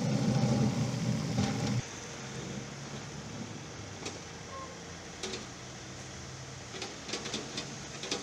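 John Deere 3038E compact tractor's diesel engine running as its front loader bucket scrapes through mud, loudest for the first two seconds and then a steadier engine hum. A quick run of clicks near the end.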